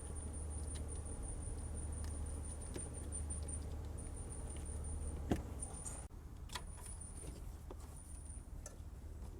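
Small clicks and scraping of an electrical wire being fed through a zero-turn mower's metal frame, with one sharper knock about five seconds in. A low steady hum runs underneath and drops away about six seconds in.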